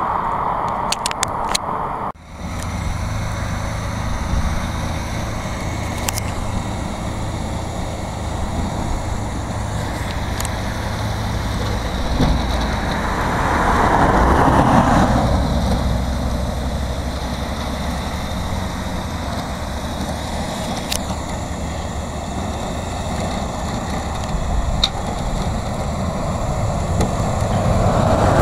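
Recovery truck's engine running with a steady low hum while its winch draws a broken-down hatchback up the flatbed ramp, with a few light clanks. Passing traffic swells and fades around the middle, and a heavy lorry goes by near the end.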